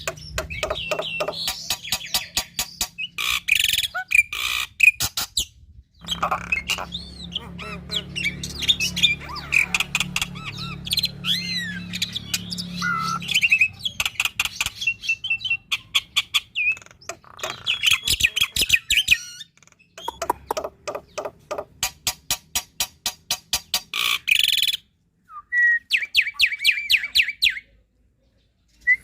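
Black-winged starling (Javan white starling) singing a busy, full song of rapid repeated chattering notes, whistled glides and harsh squawks, broken by a few short pauses.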